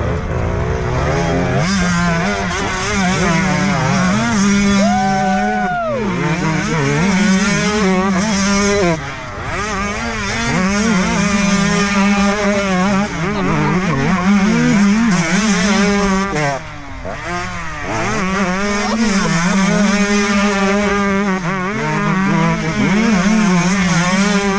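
Two 125cc two-stroke dirt bikes ridden slowly in tight turns in sand, their engines revved and blipped on and off so the pitch keeps rising and falling. The engines ease off briefly about nine seconds in and again around seventeen seconds.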